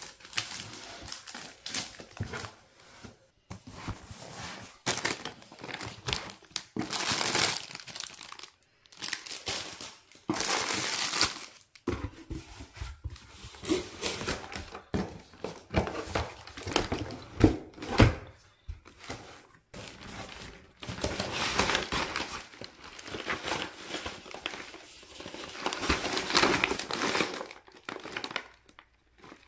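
Packaging crinkling and rustling in repeated irregular bursts as it is handled by hand, with some tearing, in a small room.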